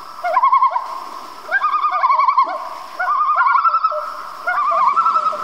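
Bird calls: a wavering, warbling phrase repeated four times, roughly every one and a half seconds.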